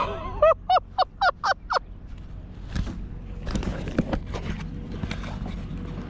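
A bird calls a quick run of about six sharp notes, each sweeping down in pitch, about four a second. Scattered light clicks and knocks follow.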